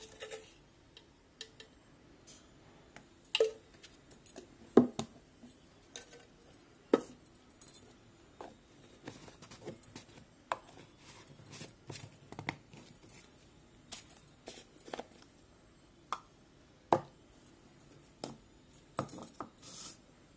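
Scattered light clicks and knocks of plastic containers from a stacking baby-formula dispenser being handled, its lids fitted and twisted on, with the clink of bangles on the wrists.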